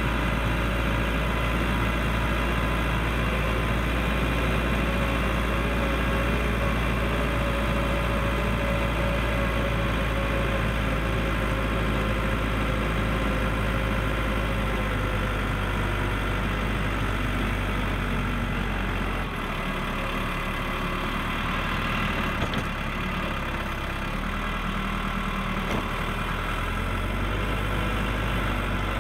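Case 580L backhoe's turbocharged diesel engine running steadily while pushing snow. About two-thirds of the way in, its pitch drops for a few seconds, then picks up again.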